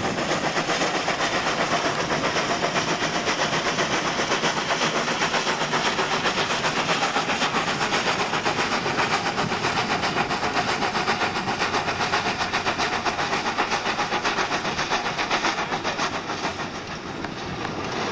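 FS Gr.981 steam rack tank locomotive pushing its coaches, a rapid even beat of exhaust chuffs, about five a second, with the clatter of the train; the beat fades near the end as the locomotive passes.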